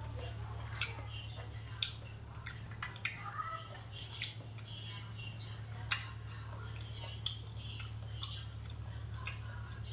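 Metal spoon and chopsticks working food on a stainless steel compartment tray: sharp clinks of the spoon against the steel about once a second or so, over a steady low hum.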